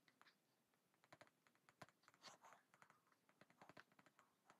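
Near silence with faint, scattered taps and ticks of a stylus writing on a tablet screen.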